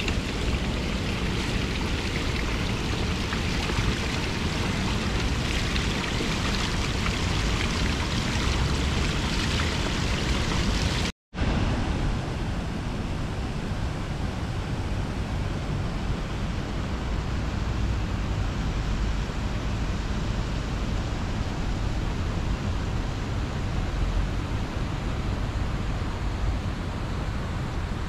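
Steady outdoor city ambience: an even wash of noise with no distinct events. It drops out for an instant about eleven seconds in and comes back with less hiss.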